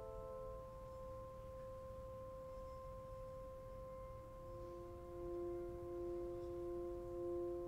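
Quiet sustained pure tones, like sine waves, hold steady without fading. About four and a half seconds in, a concert flute joins with a low held note.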